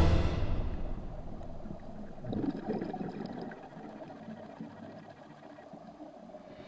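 Background music dies away in the first second, then faint underwater bubbling and gurgling, briefly louder a little over two seconds in.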